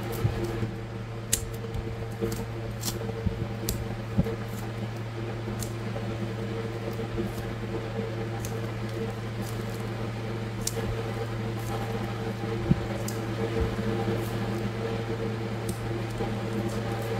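Plastic-sleeved sticker sheets being handled and stacked by hand: occasional light clicks and rustles of the plastic. A steady low hum runs underneath.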